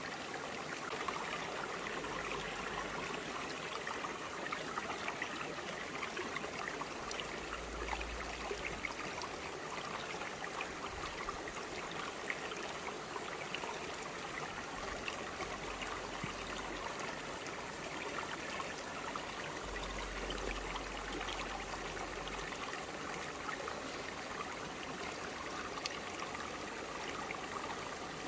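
Shallow forest stream flowing over broad rocks, a steady rushing and trickling with fine splashes.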